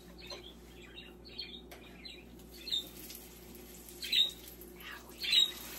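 A bird chirping in short, high calls, about six of them, over a faint steady hum.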